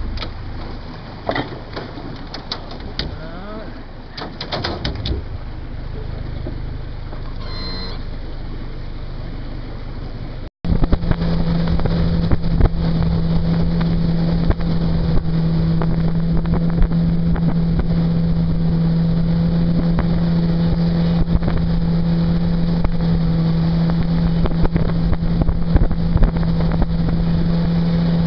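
Mercury 60/40 outboard jet motor running quietly at low speed, with a few scattered clicks. After a sudden break about ten seconds in, it runs much louder at a steady cruising speed with an even hum, and wind buffets the microphone.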